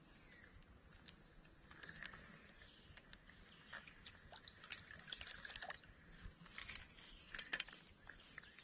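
Faint outdoor ambience with scattered light clicks and rustles, which come more often and louder from about five seconds in, loudest around seven and a half seconds in.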